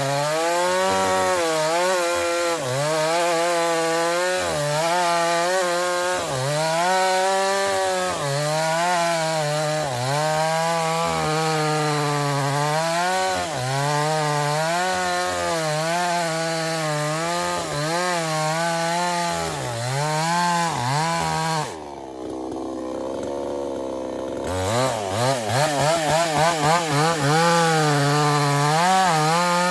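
Two-stroke chainsaw cutting wood, its engine pitch repeatedly dipping under load and recovering. About twenty-two seconds in it drops to idle for a couple of seconds, then is revved in a series of quick blips and runs at full speed again.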